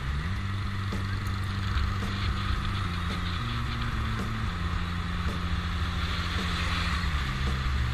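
Motorbike engine running while riding, its low hum shifting up and down in pitch a few times, over a steady rush of wind and road noise.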